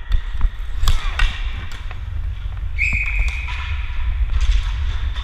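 Inline skating on an indoor rink floor, heard from a camera worn by the skater: a steady low rumble of wheels and wind on the microphone, with a few sharp knocks about a second in and a brief high steady tone about three seconds in.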